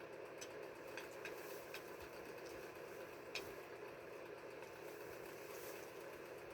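Steady low hum of a small electric motor, with a few light, scattered clicks of hens pecking food off a plate.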